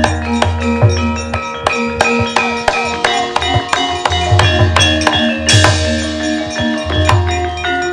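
Javanese gamelan ensemble playing: bronze metallophones and gongs ringing in overlapping struck notes, with hand-drum strokes, and a brief metallic clash about five and a half seconds in.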